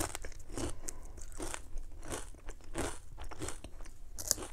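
Potato chips being bitten and chewed with the mouth, a run of crisp crunches about two a second.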